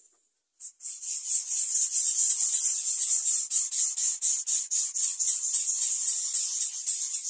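Greater coucal nestlings begging for food with a continuous, raspy high-pitched hiss, pulsing several times a second, starting about half a second in.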